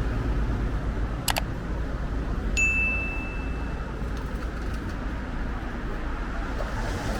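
Steady city street background hum with traffic, a sharp click about a second in, then a single high ding that rings out for about a second and a half.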